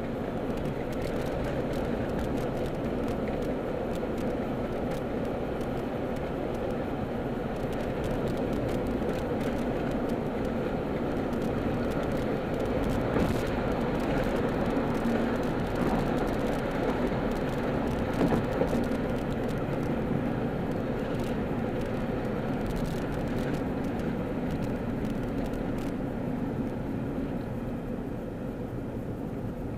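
Steady road and engine noise heard inside a moving car's cabin: a continuous low rumble of tyres and engine at street speed. A few brief light knocks sound around the middle.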